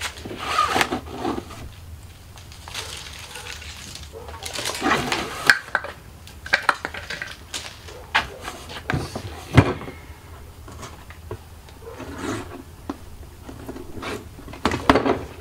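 A cardboard box being handled and opened by hand: irregular rustles and scrapes of cardboard, with scattered sharp taps and a few louder knocks partway through.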